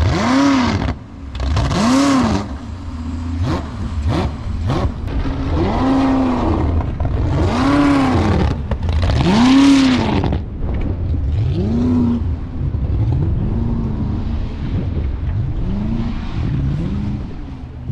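Jet boat engine revving up and falling back again and again, its pitch rising and dropping every couple of seconds over a steady rumble and water noise. The swells get softer near the end.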